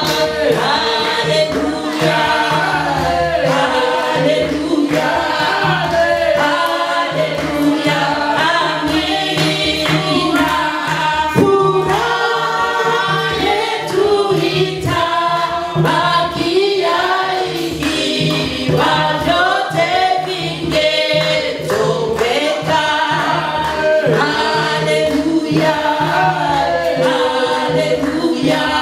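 Church choir singing a gospel song, with a steady low pulsing beat underneath.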